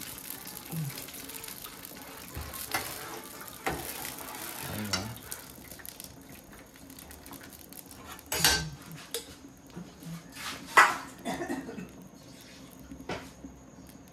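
Cooking pots and metal utensils clattering: a series of separate knocks and clanks, the loudest about eleven seconds in. For the first six seconds they sound over a steady hiss, which then stops.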